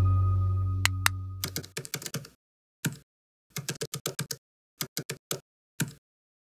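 A held music chord fades out, then a computer-keyboard typing sound effect: quick clicks in short clusters with brief gaps between them, lasting about four seconds.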